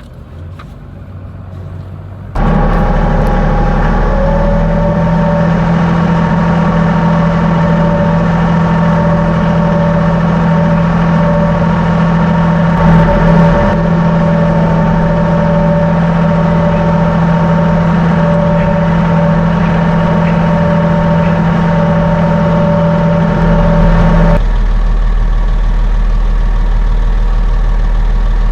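An engine running steadily, a loud even hum with a steady whine over it, starting abruptly about two seconds in. Near the end the whine drops out and a lower steady rumble carries on.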